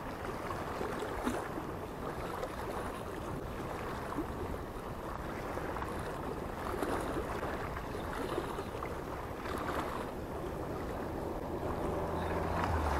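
Small wind-driven waves lapping and splashing at the water's edge, with wind on the microphone.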